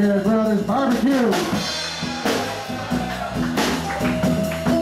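Live band playing electric guitar, electric bass, drum kit and keyboard, with sharp drum hits and a ringing cymbal about two seconds in.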